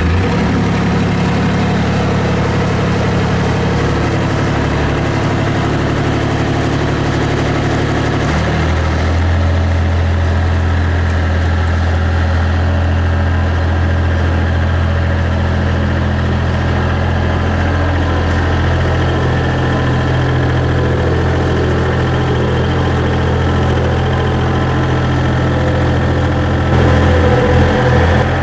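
Mustang skid steer's diesel engine running steadily at idle just after starting, fired without the glow-plug preheat. Its note drops to a lower, steadier hum about eight seconds in, and it briefly gets louder near the end.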